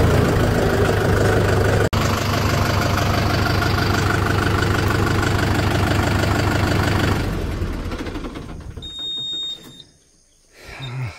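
Diesel tractor engine running steadily, then switched off about seven seconds in and dying away. A short high beep follows, then a low thud.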